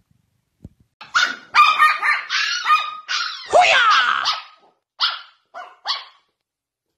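A dog barking: a fast run of barks starting about a second in, then three short separate barks, then it stops.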